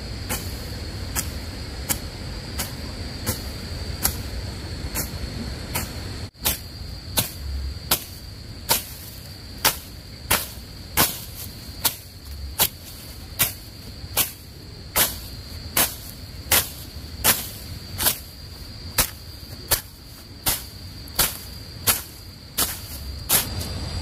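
A regular series of short, sharp strikes, about one a second at first and then quickening to roughly one every 0.7 seconds, over a continuous high insect buzz.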